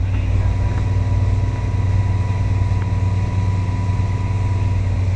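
Motorboat engine running steadily at speed, with a low rumble and the rush of the wake behind the boat.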